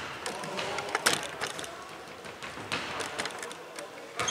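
Irregular knocks and taps of play on an indoor basketball court, the loudest about a second in.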